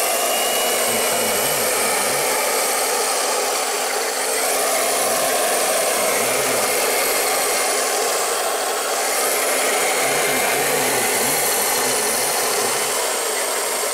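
Octa RC100 handheld electric cloth cutter, its small brushed motor and round blade running steadily as it cuts through four layers of denim.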